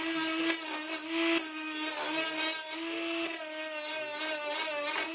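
Electric grinder running at high speed with a steady whine, beveling the edges of aluminium stock. The pitch sags and wobbles as the wheel is pressed into the metal, most in the second half.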